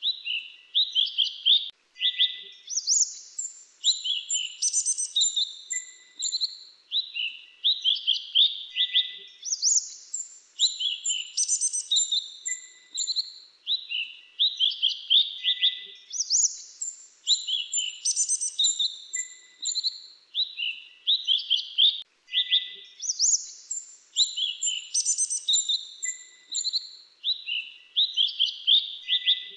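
Songbird sold as the 'mantenan dagu kelabu' singing a fast, high twittering song of quick chirps and trills. The same phrase returns about every seven seconds, each with a higher burst of notes, as if the recording is looped.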